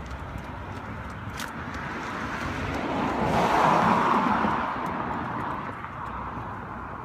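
A car driving past on the street: its road noise swells to its loudest about four seconds in, then fades away.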